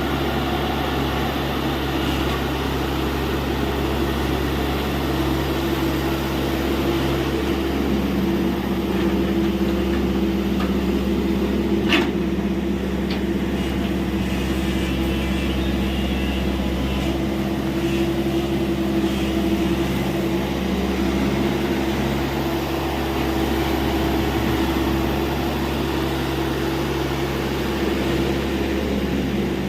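TATA Hitachi EX70 excavator's diesel engine running steadily while digging, its pitch stepping up and down a few times, with a single sharp knock about twelve seconds in.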